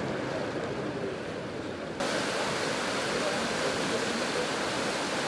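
Water rushing and churning out of the outflow of a working paddle-wheel steam pumping station, pouring past the raised flap gates. A steady rush that turns louder and brighter at a cut about two seconds in.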